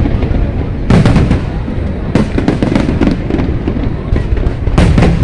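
Fireworks display going off: loud bangs about a second in, a little past two seconds and again near the end, with continuous crackling and rumbling between them.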